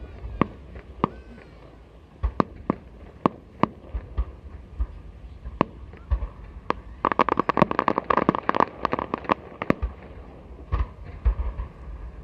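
Aerial fireworks bursting: scattered single sharp bangs, then about seven seconds in a dense, rapid crackle of many reports lasting around two seconds, followed by a few more bangs.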